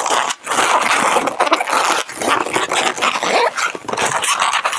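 Inflated 260 latex twisting balloon squeaking and rubbing under the hands as bubbles are twisted and locked together, with a brief pause about a third of a second in.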